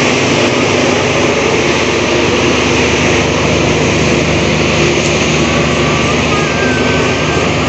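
Steady drone of a standing diesel passenger train: a low engine hum with a strong hiss above it, holding an even level.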